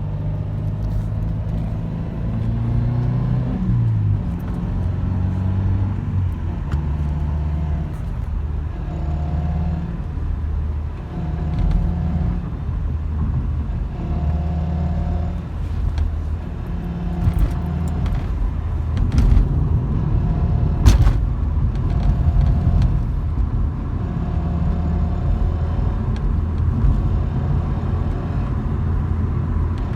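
1996 Subaru Legacy's 2.2-litre non-turbo flat-four engine running, with a whine that comes and goes in short spells. The whine appears only under acceleration and its cause is unknown. One sharp click about two-thirds of the way through.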